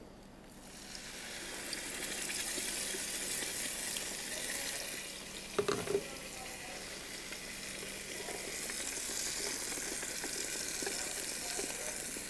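Ground green masala paste sizzling in hot ghee and oil in a wok. The sizzle builds up about a second in and then holds steady, with a few sharp knocks from a utensil on the pan about six seconds in.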